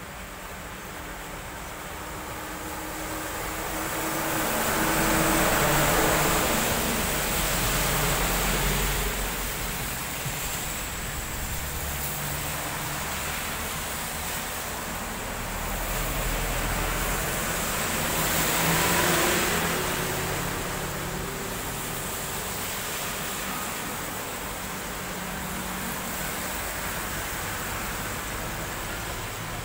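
Cars driving past on a wet road, their tyres hissing through the water over a low engine hum. The two loudest passes come about five to eight seconds in and again around eighteen to nineteen seconds, over a steady background hiss.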